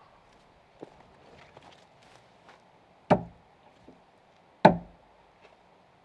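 Two heavy hammer blows struck on a timber log, about a second and a half apart, each a sharp crack with a short ringing decay; a light knock comes before them.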